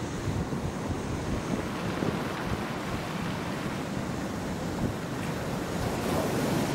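Ocean surf breaking against a rock platform: a steady rush of waves, with wind.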